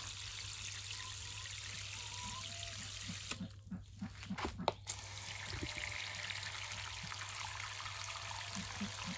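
Water from a hose nozzle on its shower setting pouring into the bottom reservoirs of self-watering plant pots. The flow stops for about a second and a half a little over three seconds in, with a few light clicks, then starts again.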